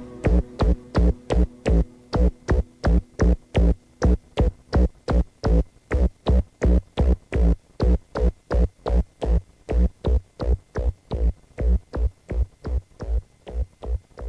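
Electronic dance music: a steady, evenly spaced kick-drum beat. The sustained synth layers drop away in the first couple of seconds, leaving the beat almost bare, and it slowly fades as the track ends.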